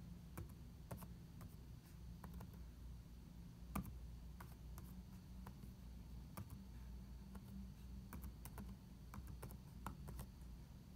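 Laptop keyboard typing, faint, with irregular key clicks and one sharper tap a little under 4 seconds in. A steady low hum runs underneath.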